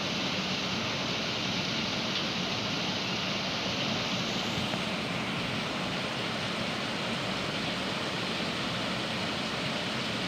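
Heavy rain pouring steadily with strong wind, a continuous even rushing hiss that keeps the same level throughout.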